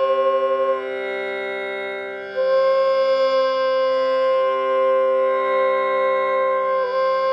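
Medium C bansuri (bamboo flute) holding long steady notes over a continuous tanpura drone, checking that the flute sits in tune with the drone's pitch. The held note breaks off just under a second in, leaving the drone alone for about a second and a half, then the flute takes up the same note again and holds it.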